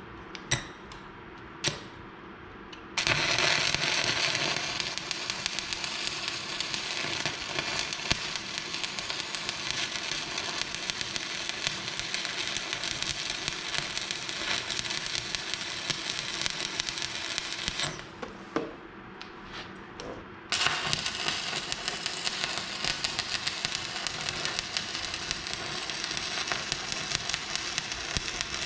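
Stick welding arc crackling steadily as a bead is run on an excavator bucket tooth. A few short ticks come before the arc catches about three seconds in; it stops past the middle for a couple of seconds with a few more ticks, then is struck again and crackles on.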